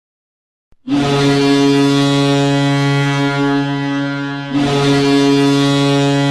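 Hockey arena goal horn blowing two long, loud blasts of a deep, steady tone. The first starts about a second in, and the second follows right after it, about four and a half seconds in.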